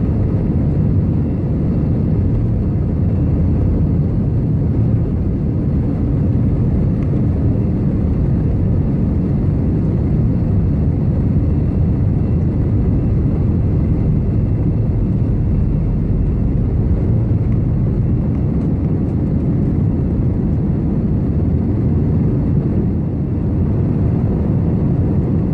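Steady low rumble of airliner cabin noise, the jet engines and airflow heard from inside the cabin, running evenly throughout.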